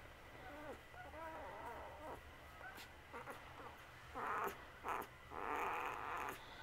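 Five-day-old wolf dog pup making small high squeaks and whimpers, followed by louder rustling bursts from about four seconds in as it squirms under a stroking hand.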